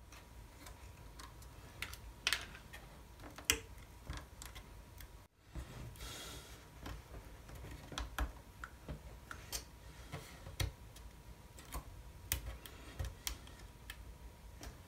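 Scattered light clicks and taps of fingers handling and pressing a thin wooden strip against the plywood stern of a model ship, with a brief rustle about six seconds in.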